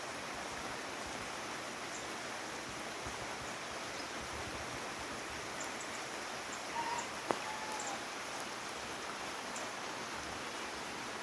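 Steady light rain falling, an even hiss throughout. A few faint bird chirps and a single sharp click come about seven seconds in.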